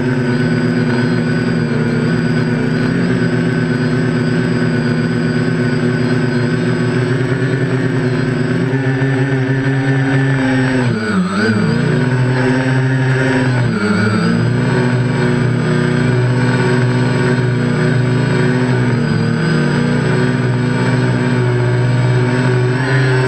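Quadcopter brushless motors and propellers in flight, heard close up from a camera on one of the arms: a steady whine of several tones. The pitch dips briefly twice around the middle as the throttle eases and comes back.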